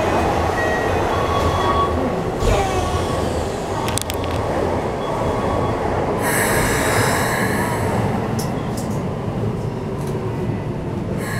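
Keikyu New 1000 series train standing at a platform, a steady rumble from the car, while its passenger doors slide shut about halfway through with a burst of hiss lasting about a second. A few sharp clicks come before it.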